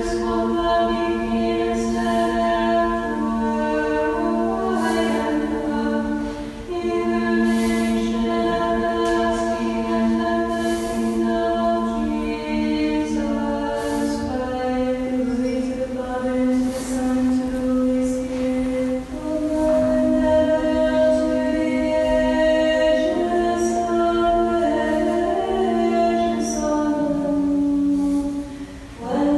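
Unaccompanied voices singing Orthodox liturgical chant in slow, held notes that step to a new pitch every few seconds. There is a brief break for breath near the end before the next phrase begins.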